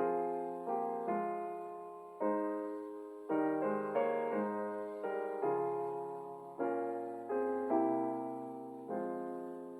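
Slow, gentle piano music: soft chords struck about once a second, each left to ring and fade.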